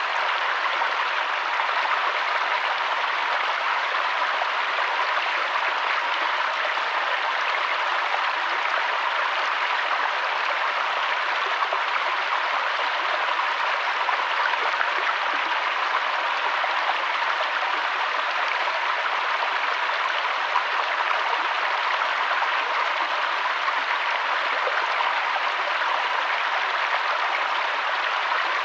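Mountain stream and waterfall water rushing steadily, an even, unchanging hiss.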